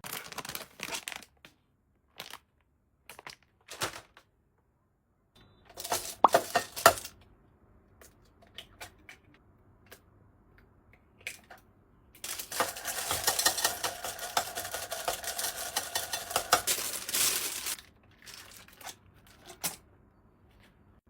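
Crinkling, rustling handling noise in short bursts, with a longer stretch of dense crackling from about twelve to eighteen seconds in.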